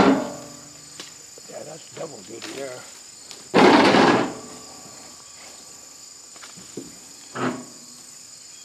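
Leafy tree branches rustling and shaking loudly as a long pole is pushed up into them: one big swish about halfway through and a smaller one near the end. Under it, a steady high buzzing of late-summer insects.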